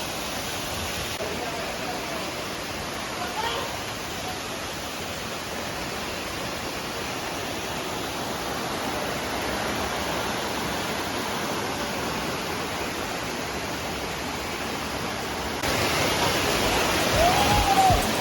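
Steady rush of a rain-fed waterfall and cascading water, with faint voices of people. The rushing gets louder near the end.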